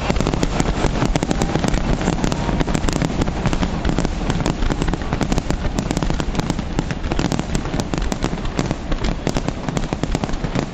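New Year fireworks display: a dense, unbroken barrage of bangs and crackles over a deep rumble.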